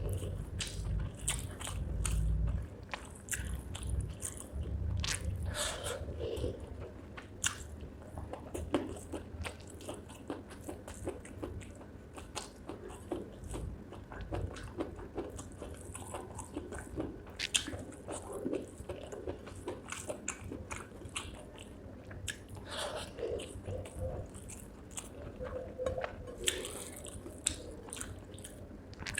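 Close-up eating sounds of spicy chicken gizzard and rice: repeated wet chewing, smacking and occasional crunchy bites, with short sharp clicks scattered throughout.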